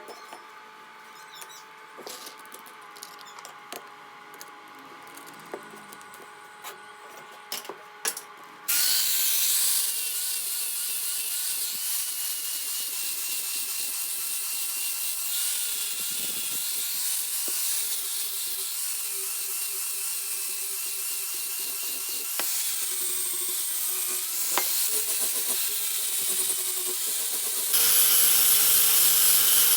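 A few light clicks and knocks, then about nine seconds in an electric grinder starts and runs steadily on stainless steel pipe, finishing the weld seam, with a high motor whine over the grinding noise; it gets louder near the end.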